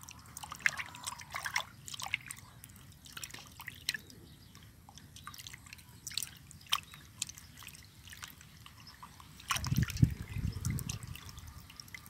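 Water splashing and dripping in a steel bowl as whole fish are rubbed and washed by hand, in short irregular splashes. A louder, dull bump comes about ten seconds in.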